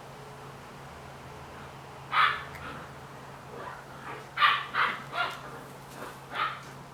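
Vizsla puppy giving a handful of short, high barks: one about two seconds in, a quick run of three a couple of seconds later, and one more near the end.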